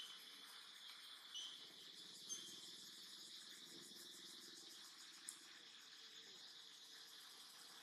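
Faint, steady high-pitched drone of insects in the forest, with a few short high chirps in the first couple of seconds and a single soft click about five seconds in.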